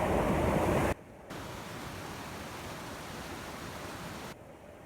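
Waterfall's falling water rushing as a steady, even wash of noise. It drops sharply in level about a second in and again near the end.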